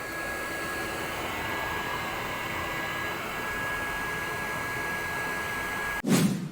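Electric blower running steadily with a thin steady whine over its rushing air. About six seconds in it cuts off into a short, loud burst of noise that then dies away.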